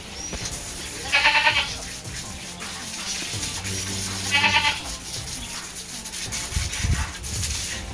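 A goat bleats twice, about a second in and again about four seconds in, each a short wavering call. Under it, water from a garden hose hisses steadily.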